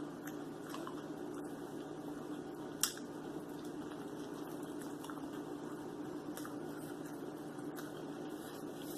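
Eating sounds: chewing on a turkey taco, with soft scattered mouth and food clicks and one sharper click about three seconds in, over a steady low hum.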